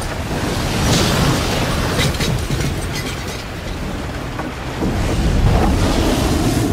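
Violent storm at sea over a shrimp boat: a dense rush of wind, rain and waves, with a heavy low rumble and deep booms and sharp cracks breaking through.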